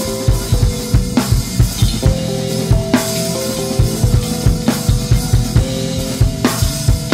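Instrumental band music from electric guitar, bass guitar and drum kit: busy kick-drum and snare hits several times a second, with held guitar notes over a low bass line.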